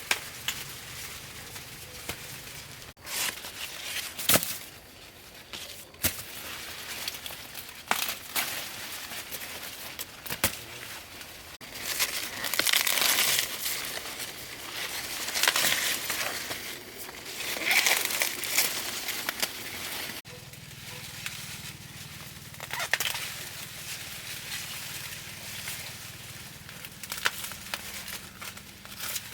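Rustling, crinkling handling noise with sharp snaps and clicks, in several louder bursts near the middle.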